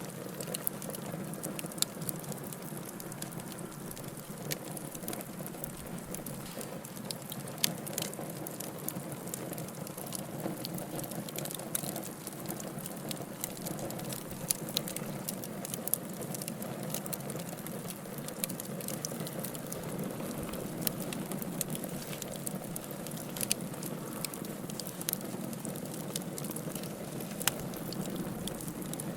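Fireplace fire crackling: a steady low rush of burning with scattered sharp pops and snaps all through.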